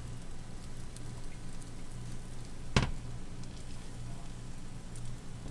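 Pancake frying in a generous layer of fat in a pan: a steady sizzle and crackle, with one sharp click or knock nearly three seconds in.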